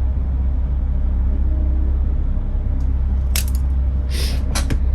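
A small nail being cut with cutters and handled: a few sharp light metallic clicks past the middle, over a steady low electrical hum.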